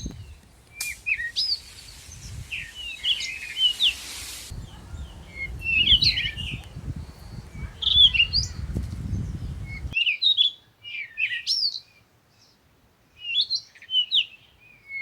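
Several birds chirping and calling in short, repeated notes, over a low rumble that stops abruptly about ten seconds in.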